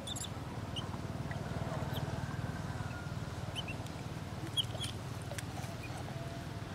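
Juvenile long-tailed macaque giving a handful of short, high-pitched squeaks while it struggles out of the water and is grabbed by an adult, over a steady low rumble.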